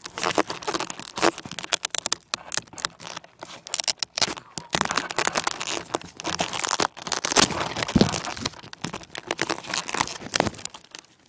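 Dense, irregular crackling and rustling on the small onboard camera's microphone, the noise of the camera and plane being handled or buffeted, with no motor running.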